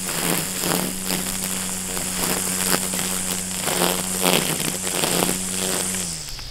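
Wild Badger 40-volt cordless string trimmer running at a steady speed, its spinning line cutting grass with repeated swishing strikes. Near the end the motor winds down as the trigger is let go.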